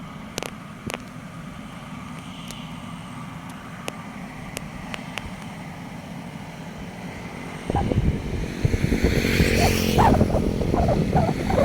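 Small engine of a rice threshing machine running steadily, with a few sharp clicks. About eight seconds in it gets much louder and rougher.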